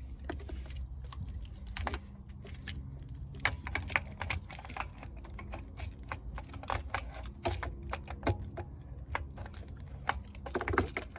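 Irregular light clicks and clatter of small metal and plastic parts being handled while a new carburetor is fitted into place on a 50cc ATV, over a low steady hum.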